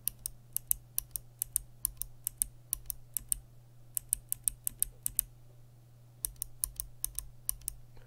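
Kailh click-bar clicky keyboard switches, a Box White and then a bronze one, pressed one after another. Each press gives a sharp, crisp, high click, about three a second, in runs of several presses with short pauses between them.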